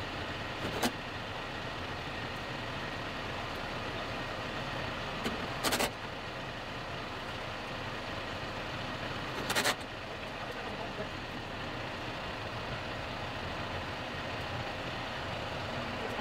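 John Deere tractor's diesel engine idling steadily, with three short sharp knocks spread several seconds apart.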